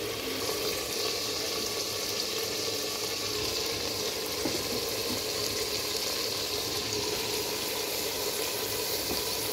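Steady sizzling of meat masala frying in a pot: an even hiss that holds at the same level throughout.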